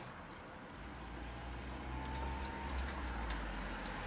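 A Tofaş Doğan SLX car driving up the road toward the listener, its engine running and growing louder as it nears.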